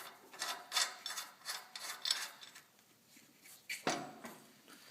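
Metal hardware scraping and rubbing in several short strokes as a washer and nylon lock nut are fitted onto the rack-and-pinion mounting bolt, with a sharp knock a little before the end.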